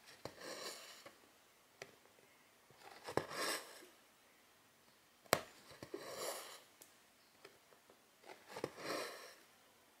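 Silk thread drawn through 11-count cross-stitch fabric: four swishes, one about every two and a half to three seconds, with small clicks between them and one sharper click about five seconds in.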